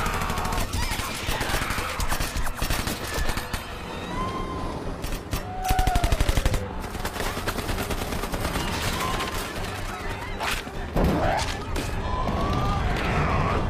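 Dense automatic rifle fire from several guns, with a loud, fast burst of evenly spaced shots about six seconds in. Shouts and screams are mixed in.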